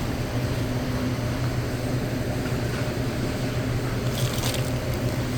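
Steady low hum of a warehouse store's air handling, with a few faint clicks about four seconds in.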